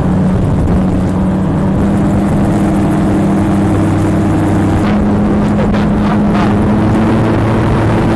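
MTO autogyro's pusher engine and propeller running with a steady drone; the engine note shifts slightly in pitch about two seconds in and again about five seconds in.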